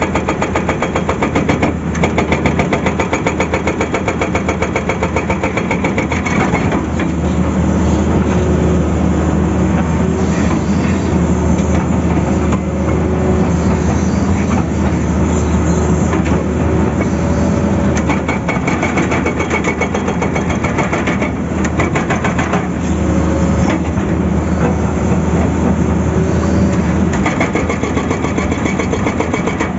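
Hydraulic rock breaker on a Tata Hitachi excavator hammering its chisel into rock in rapid repeated blows, over the steady run of the excavator's diesel engine. The hammering breaks off briefly a few times while the chisel is moved.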